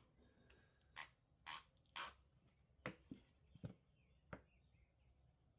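A plastic bottle of Dawn dish soap squeezed out over a concrete driveway: about seven faint, short squirts and taps in a loose, irregular run.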